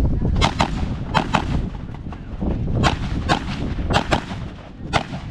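Rifle shots fired in quick pairs, a pair about every second, each shot sharp with a short echo.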